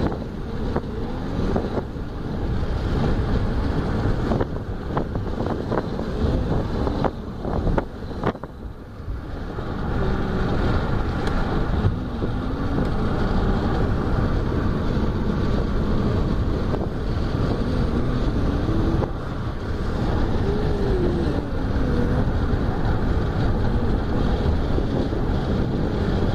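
Wind buffeting the microphone and tyre and road noise from a moving car, with faint engine hum underneath; gusts come and go in the first several seconds, then the noise settles into a steady rush.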